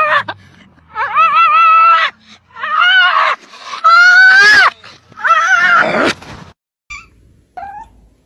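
A husky-type dog yowling at the top of its voice: four loud, drawn-out calls, each under a second, bending up and down in pitch.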